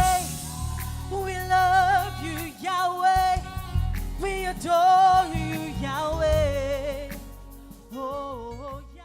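Live gospel worship music at the end of a song: a singer's long, wavering vibrato notes over the band's sustained bass and keys, fading out over the last few seconds.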